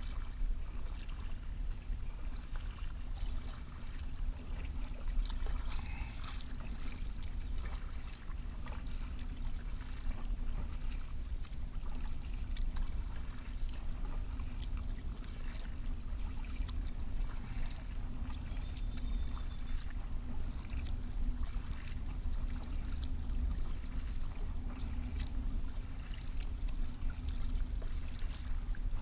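Kayak paddling: water splashing and dripping off the paddle blades in irregular short splashes, over a steady low rumble.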